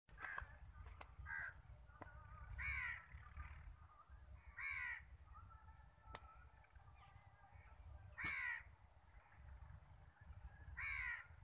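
Crow cawing four times, two to four seconds apart, each call harsh and about half a second long, with a few fainter calls between. A steady low wind rumble on the microphone runs underneath.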